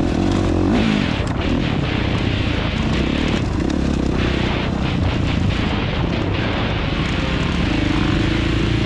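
Dirt bike engine running hard on a trail ride, its note rising and falling with the throttle, over wind and rushing noise.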